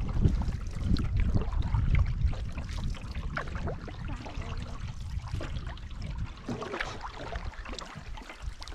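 Wind buffeting the microphone over water lapping and trickling around a paddled canoe; the wind rumble is strongest for the first few seconds, then eases, leaving small splashes and drips of water.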